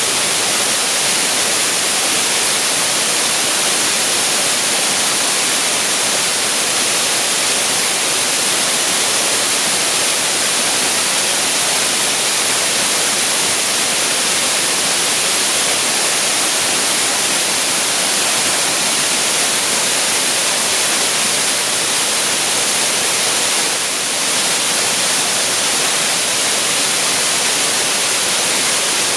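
Waterfall pouring steadily, a dense, even rush of falling water heavy in hiss.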